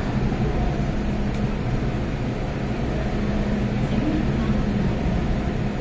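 Steady low hum of a CAF-built MTR Tung Chung Line train standing at the platform with its doors open, its auxiliary equipment and air-conditioning running, with faint voices in the station.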